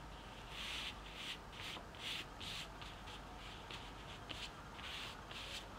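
Fingertips rubbing a paper napkin flat against a sheet of drawing paper, a series of short soft brushing strokes, about two a second.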